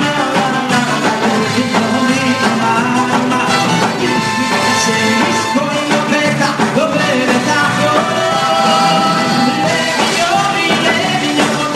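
Live concert band playing Jewish music, with a singer's voice over it.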